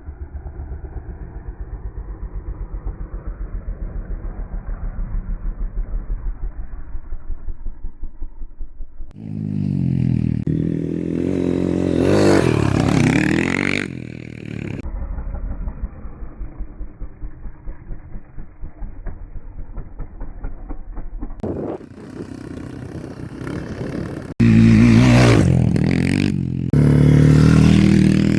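Motocross bike engines: stretches of a low, muffled, pulsing idle alternate with loud revving whose pitch rises and falls, with abrupt changes between them.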